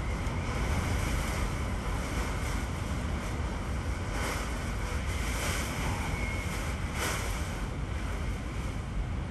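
Hurricane-force wind and driving rain: a loud, steady rush with heavy wind buffeting on the microphone. Gusts swell it with a brighter hiss several times, most strongly about four, five and a half and seven seconds in.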